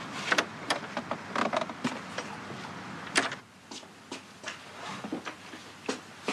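Footsteps and knocks on a wooden porch and door, ending in one sharp bang about three seconds in as the door shuts. After the bang the background is quieter and softer indoor footsteps follow.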